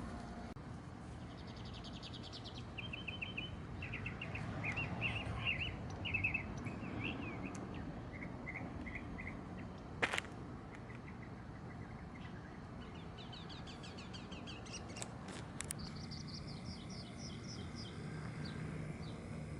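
Wild songbirds chirping and singing in short, quickly repeated phrases over a steady outdoor background noise, with one sharp click about halfway through.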